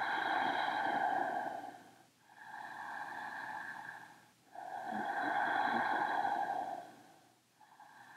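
A woman's deep, audible breathing: slow, hissy inhales and exhales of about two seconds each, the last one fainter, as she breathes steadily through a held standing calf stretch.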